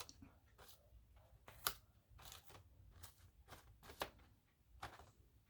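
Faint rustling of paper cut-outs being handled and laid down, with several brief light ticks.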